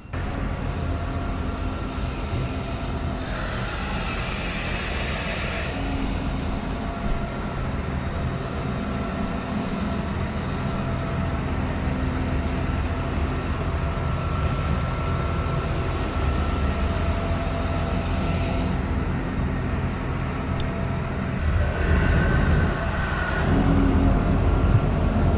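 A motor vehicle's engine running steadily with a low rumble, growing louder about 21 seconds in.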